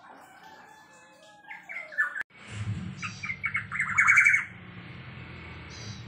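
Caged black-naped oriole calling: soft gliding whistles, then after a brief break a rapid run of loud, harsh notes, loudest about four seconds in, over a low background hum.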